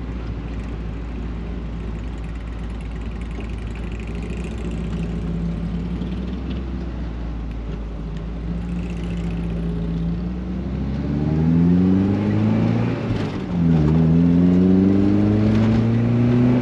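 Mazda Miata's four-cylinder engine on the road, running low and steady, then about two-thirds of the way in revving up hard under acceleration, dropping in pitch at a gear change and climbing again. It is a load test for a misfire that shows up in first and second gear.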